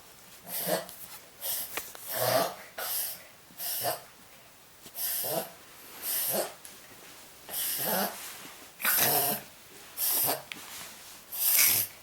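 Papillon dog reverse sneezing: a rapid run of about a dozen rough, forceful breaths drawn in through the nose, roughly one a second, with a short break about four seconds in.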